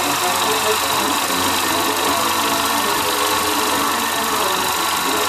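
Specto 9.5 mm cine projector running, a steady mechanical clatter from its film transport.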